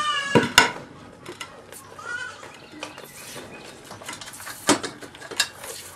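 A dairy goat bleats, the call ending just after the start, and gives a shorter call about two seconds in. Sharp knocks and clicks sound among the calls while she is hand-milked on the stand.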